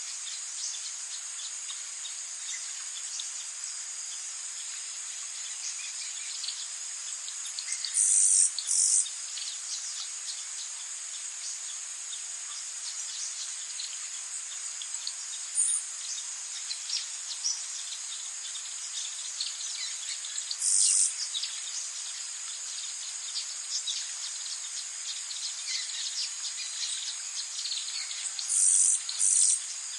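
A forest insect chorus trills steadily and high, with short, louder buzzes standing out every several seconds, some of them in pairs. Scattered quick bird chirps sound underneath.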